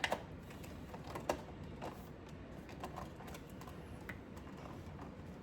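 Faint scattered clicks and small rustles of plastic and cardboard packaging being handled while she works a doll's broom loose from its box.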